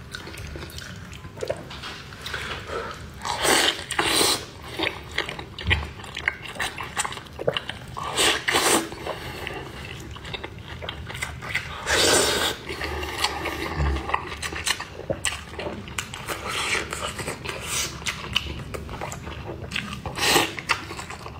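Close-up eating sounds of a person gnawing and sucking sauce-coated braised pork knuckle skin and meat off the bone: wet chewing and smacking, with a few louder sucks about a second long.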